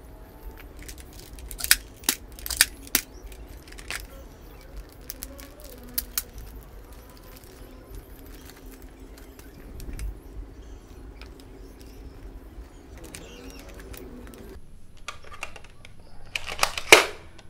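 Plastic packaging and a crinkly plastic bag of foam darts being handled, with a run of sharp clicks and rattles early on. Near the end comes a quick cluster of loud plastic clacks as the Nerf Elite Disruptor toy blaster's slide is worked.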